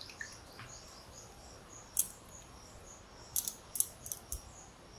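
Faint, steady chirping of insects, repeating evenly about three times a second, with a few sharp clicks about two seconds in and a short cluster of clicks a little later.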